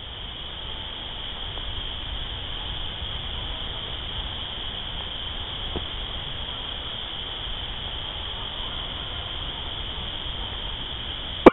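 Steady outdoor night ambience: a continuous high-pitched chorus of calling night animals over a low rumbling hiss. There is a faint tick about six seconds in and a sharp click at the very end.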